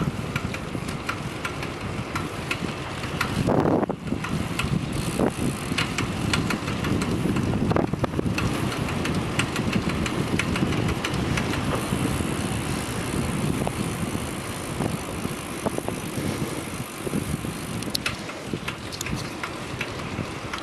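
A vehicle running, with scattered irregular ticks over a steady mechanical noise: the abnormal noise being recorded. A louder surge comes about three and a half seconds in.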